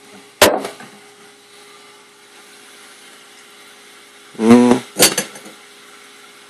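A plastic water-filter pitcher whose water is frozen into a solid block of ice is handled and tipped over a drinking glass, but nothing pours. There is a sharp clunk about half a second in. Around four and a half seconds a brief vocal hum follows, then two or three quick knocks and clinks, with a faint steady hum underneath.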